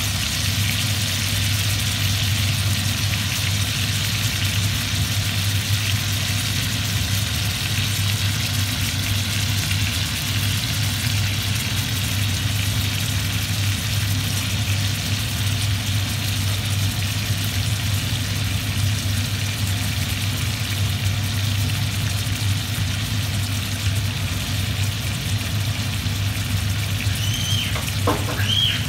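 Steaks frying in butter in a hot cast-iron skillet, a steady sizzle over a constant low hum, with a couple of brief high squeaks near the end.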